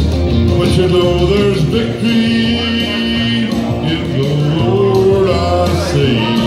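A man singing a slow country song into a microphone over an instrumental backing, holding long notes that slide between pitches.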